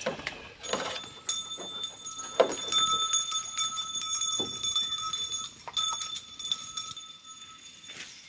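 Goats moving out of their pen, with a high ringing, jingling sound that starts about a second in and stops near the end, over scattered clicks and knocks.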